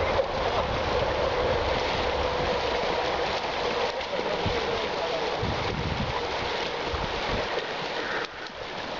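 Steady rushing of creek water, an even hiss that holds at one level throughout.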